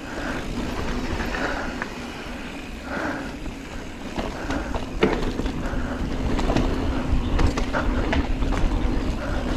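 Mountain bike rolling fast along a dirt singletrack: steady knobby-tyre noise on packed dirt, with wind rumbling on the camera's microphone and a sharp knock about five seconds in.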